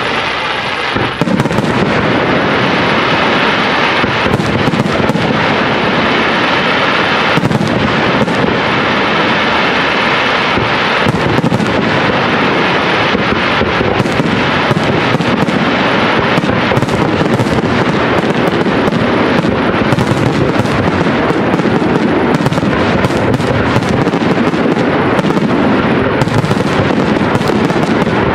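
Aerial firework shells of a professional display launching and bursting in a dense, continuous barrage of overlapping bangs.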